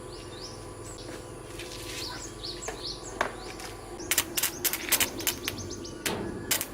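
Small birds chirping in short, quick calls, then from about four seconds in a string of sharp clicks and taps.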